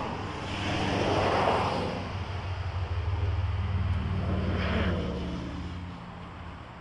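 Road traffic going past: tyre and engine noise with a low hum swells and fades twice, loudest about a second and a half in, then dies down near the end.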